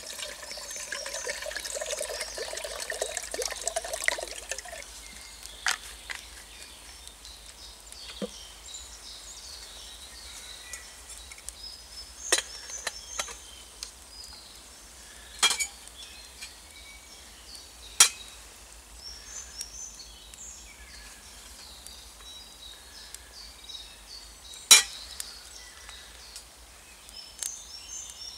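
Water poured from a canteen into a stainless steel pot, the pitch of the stream rising slightly as the pot fills, stopping about four to five seconds in. Then a handful of scattered sharp metallic clicks and clinks as the pot and its lid are handled.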